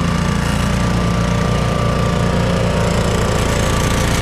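An engine running steadily at a constant speed: a loud, low, even drone.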